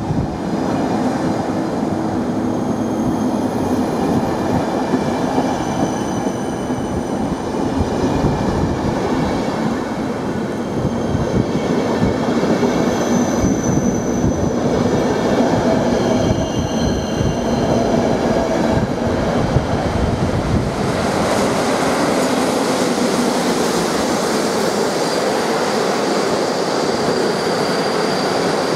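Passenger train coaches rolling past at close range, wheels running on the rails, with thin high squeals from the wheels coming and going.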